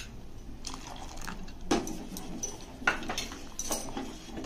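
A steel spoon scrapes custard mix out of a small steel bowl and stirs it into hot milk in a steel saucepan. About four sharp clinks of spoon on metal ring out, the loudest a little under two seconds in.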